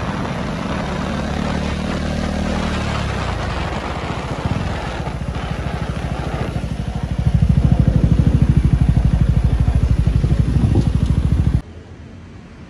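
Motorcycle engine running with wind rushing past during a ride through city traffic. The engine's low pulsing grows louder about halfway through, then cuts off sharply near the end, leaving a quieter background.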